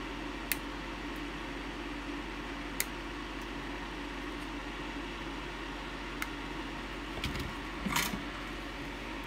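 Steady hiss with a low mains hum, broken by a few faint, widely spaced clicks and a short burst of small handling sounds near the end, as of small tools and parts being handled at an electronics workbench.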